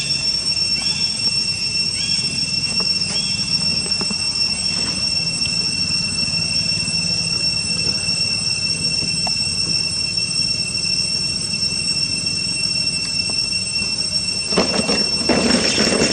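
Steady, shrill drone of an evening insect chorus, one high whine held without a break, with a run of short repeated chirps in the first few seconds. Near the end a loud rustling burst covers it.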